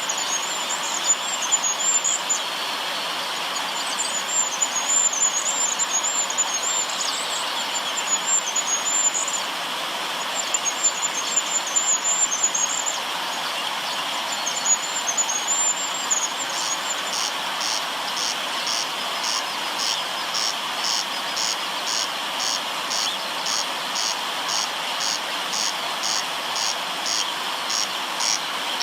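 River water running steadily, with high, thin trilling calls in short bursts through the first half. From a bit past the middle a high chirp repeats evenly about twice a second, typical of a cricket or other insect.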